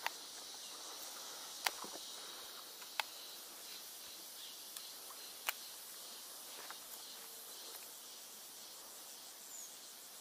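A steady high-pitched insect chorus, with a few sharp clicks about two, three and five and a half seconds in.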